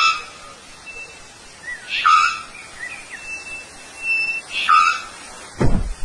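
Three-wattled bellbird calling: three loud, short calls about two and a half seconds apart, with fainter whistled notes between them. Low thumps come near the end.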